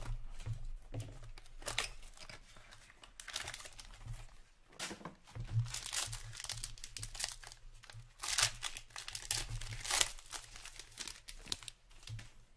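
Plastic wrapping on a hockey card box and pack being slit with a hobby knife and torn open by hand, crinkling and tearing in irregular bursts, loudest in the second half.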